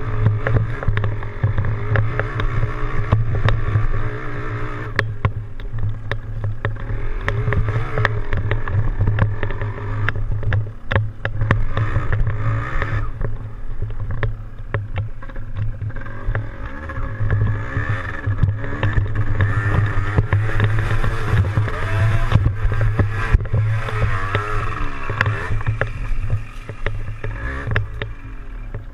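Yamaha DT175's single-cylinder two-stroke engine running while the bike is ridden, its revs rising and falling over and over.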